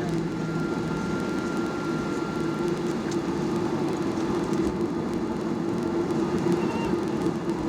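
Steady cabin noise inside a Skymark Boeing 737-800: an even hum of the jet engines and air system with a constant low drone.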